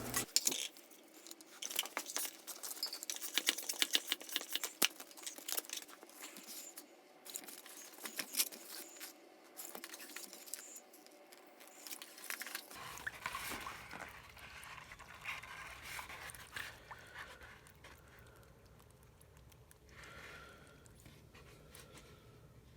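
Small clicks, taps and rustling from hand work on a bicycle tire. The clicks come thick and fast for the first twelve seconds or so, then give way to quieter, scattered handling sounds.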